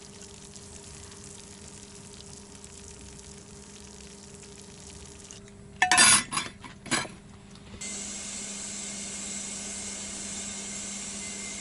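Food sizzling in a pan with a steady hiss and low hum, broken by a few loud clatters of a pot or utensils about six to seven seconds in. The sizzle grows louder from about eight seconds.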